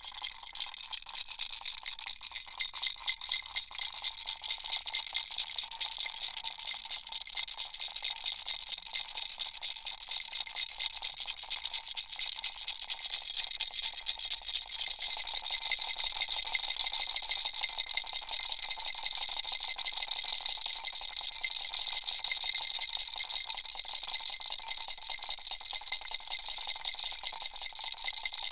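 Baby rattle shaken steadily: a fast run of small rattling clicks, about five shakes a second at first, turning more even about halfway through.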